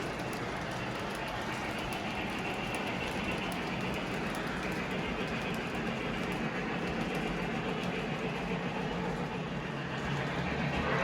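Model train running along the layout's track: a steady running rumble with faint rail clicks.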